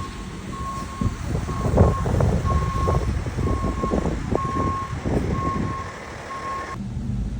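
A vehicle's reversing alarm beeping about once a second, a single steady tone, over the low rumble of a heavy engine, as a truck backs up; the beeping stops near the end.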